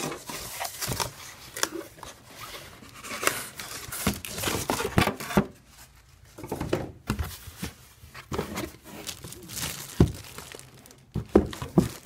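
Clear plastic film around an electric kettle crinkling and rustling in irregular bursts as it is handled inside a cardboard box, with a few sharp knocks, the loudest about ten seconds in.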